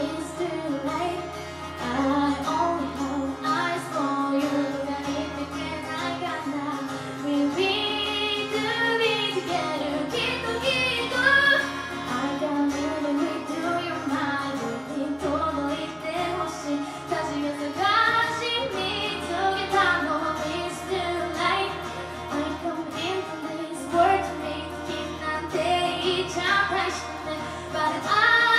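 A young female voice singing a pop song live into a microphone, with acoustic guitar accompaniment.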